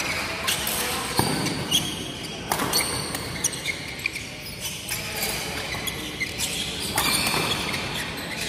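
Badminton rally: a series of sharp smacks of rackets hitting the shuttlecock, echoing in the sports hall, with brief squeaks of shoes on the court floor between shots.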